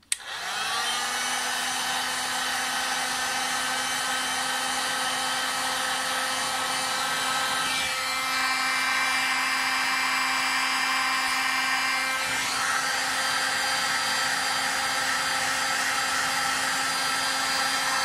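Electric hot-air heat gun switched on: its fan motor spins up briefly, then runs steadily with a hum and a rush of air, a little louder from about eight seconds in.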